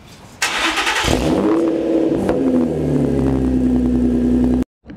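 Infiniti G35's 3.5 L V6 firing up through a Motordyne Shockwave TDX2 exhaust. The revs flare and fall back over a couple of seconds, then settle to a steady fast idle. It cuts off suddenly near the end.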